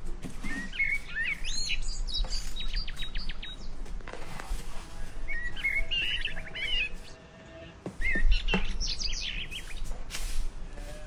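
Small birds chirping in short bouts of quick, high notes, repeated several times. Between them come a few brief scratches, fitting a hand brush sweeping dry leaves across stone tiles.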